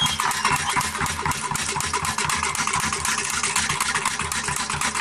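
Parai frame drums beaten fast with sticks by a group of drummers, a steady, driving run of many strokes a second.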